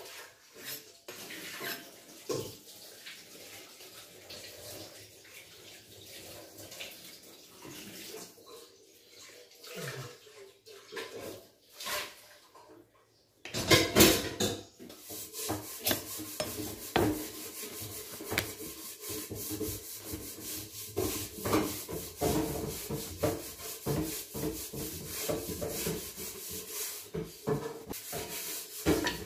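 Large kitchen knife slicing through a stack of thin samosa pastry sheets, rubbing and scraping along the dough and tapping on the work surface in many small clicks. The sound drops out briefly about halfway through, then comes back louder and denser.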